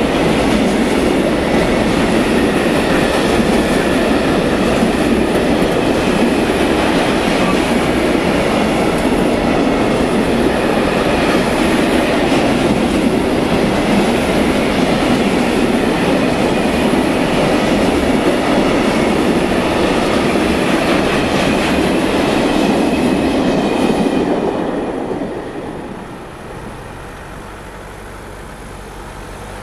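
Container freight train rolling past, wagons clattering over the rails with a steady loud rumble. About 24 seconds in the noise falls away to a quieter rumble as the end of the train passes.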